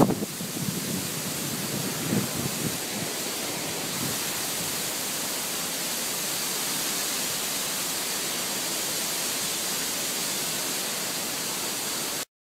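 Steady, even hiss-like noise with a few faint thumps in the first couple of seconds, cutting off suddenly near the end.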